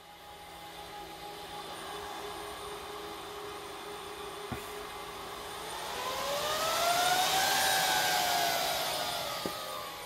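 HPE ProLiant DL380 Gen9 server's cooling fans running during boot, swelling slowly, then ramping up from about five seconds in to a loud whine that rises in pitch, peaks and eases back down near the end.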